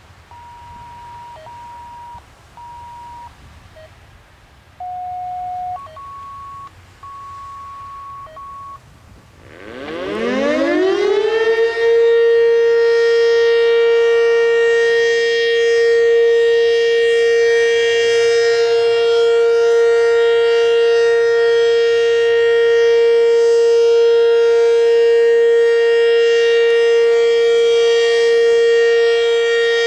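A string of short electronic beeps at a few different pitches. About nine and a half seconds in, an ACA Banshee 115 warning siren winds up, its pitch climbing over about two seconds, then holds one steady, loud, even-pitched Alert tone rich in overtones.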